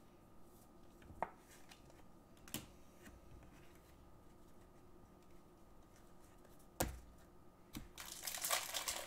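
Trading cards being handled on a tabletop, faint, with a few soft knocks as the stack is set down. Near the end, a card pack's wrapper starts crinkling as it is picked up and opened.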